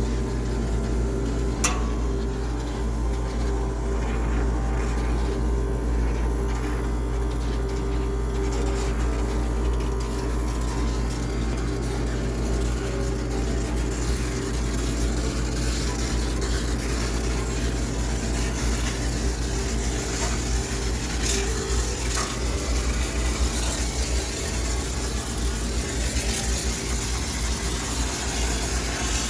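High-pressure steam sterilizer running steadily: a constant machine hum with a hiss of steam over it, and a sharp click about a second and a half in.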